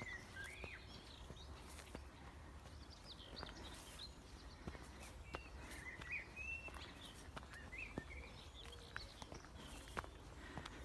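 Wild birds singing faintly: many short chirps and whistled phrases throughout, with the soft irregular taps of footsteps walking up a path.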